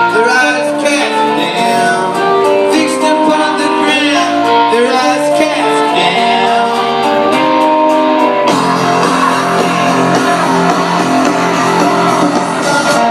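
Live rock band playing, with guitars and a singing voice. The sound grows fuller about two-thirds of the way in.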